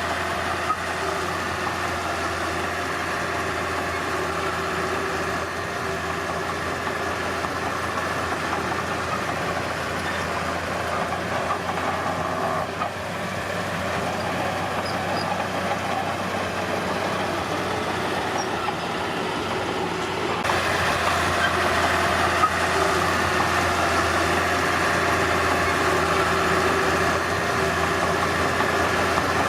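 Diesel engine of heavy earthmoving machinery running steadily, with a step up in loudness about two-thirds of the way through.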